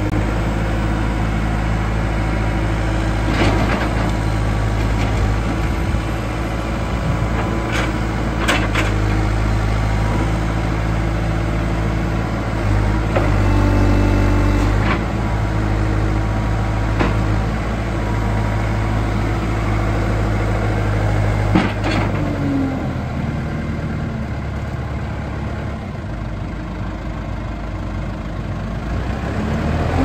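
JCB 3CX backhoe loader's four-cylinder diesel engine running steadily while the front loader bucket is raised and lowered. The engine note lifts briefly about halfway through and settles lower and quieter in the last third, with a few short sharp clicks and knocks along the way.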